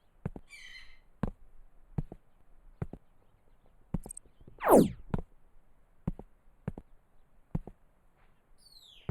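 Steady hammer blows at about one a second. A loud sweep falling sharply in pitch comes about halfway through, and brief high chirps come near the start and near the end.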